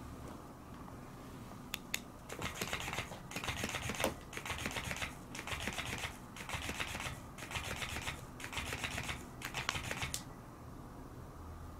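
Electric flopping fish cat toy wagging and flapping on a wooden floor: a rapid rattling flutter in bursts of about a second with brief pauses. It starts about two seconds in after a couple of clicks and stops about ten seconds in.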